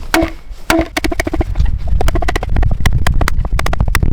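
A tapered wooden piece being hammered into a notch cut in a log to make a tight joint: sharp wooden knocks, each with a short hollow ring. Two single blows come first, then quick runs of several knocks a second.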